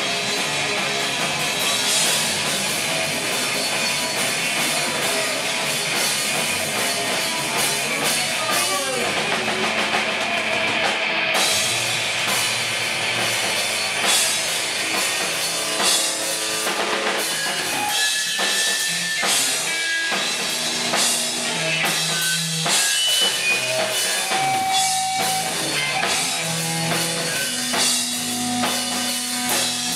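Live garage-punk band playing loud: distorted electric guitar, bass guitar and drum kit. In the second half the playing turns looser and more broken, with single held notes standing out.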